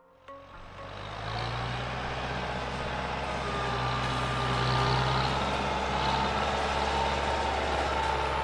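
Tractor engine running steadily, fading in over the first second.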